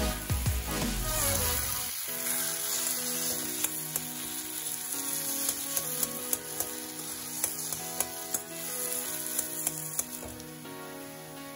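Spiced bottle gourd mixture sizzling in a kadhai as a perforated steel spatula stirs and scrapes it, with sharp clinks of the spatula on the pan every second or so; the oil is nearly all absorbed and the mixture is turning brown and crisp. Soft background music comes in about two seconds in.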